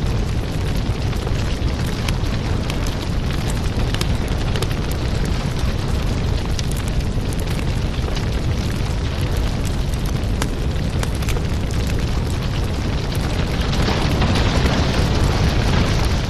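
Firewood burning in a steady rush of flame, with frequent sharp crackles and pops from the wood. The fire gets a little louder about 14 seconds in.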